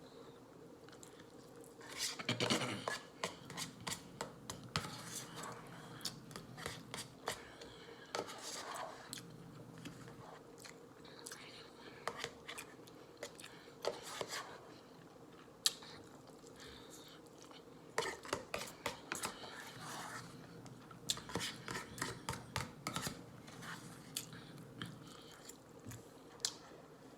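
A person chewing and eating spicy instant noodles close to the microphone, in bursts of sharp clicks and mouth sounds with quieter pauses between them.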